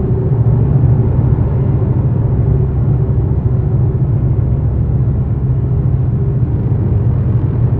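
Dark ambient noise drone: a dense, steady low rumble with faint held tones above it, no beat and no breaks.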